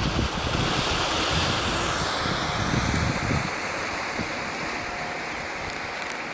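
Sea surf washing steadily with wind buffeting the microphone, the low gusts easing after about three seconds.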